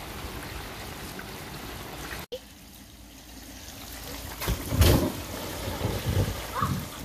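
Water spraying and trickling from the sprinkler jets along a backyard water slide, with a loud thump and smaller knocks and splashes about five seconds in as a child on an inflatable tube hits the wet slide.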